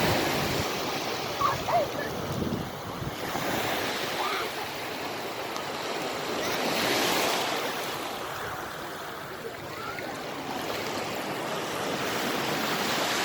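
Sea waves breaking and washing up a beach, a steady rushing surf that swells about halfway through and again near the end.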